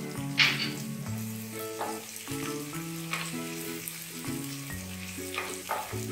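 Ginger-garlic paste, chillies and spices sizzling in hot desi ghee in a kadhai, stirred with a wooden spatula that scrapes the pan a few times, the loudest scrape about half a second in. Soft instrumental background music plays underneath.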